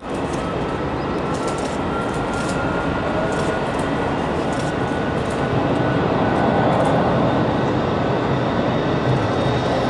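An Airbus A330-200's twin Rolls-Royce Trent 700 turbofans running at takeoff power on the runway roll: a steady roar with a thin whining tone over it, slowly growing louder.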